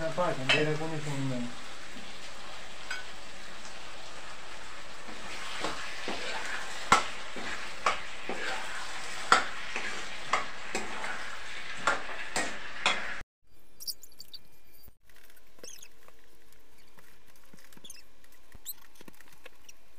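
Peas and vegetables frying in a metal kadhai on a gas stove, a steady sizzle with a ladle stirring and clinking against the pan. About two-thirds of the way through the frying cuts off, leaving a quieter room with a few faint clicks.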